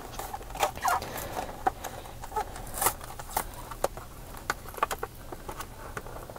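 Clear plastic blister pack crackling with irregular sharp clicks and snaps as it is pried off its cardboard backing card.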